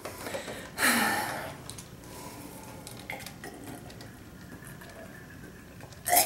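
A plastic water bottle being opened and drunk from: small clicks and handling of the plastic and cap, and quiet swallowing. A loud, heavy breath about a second in and another short breath just before the end.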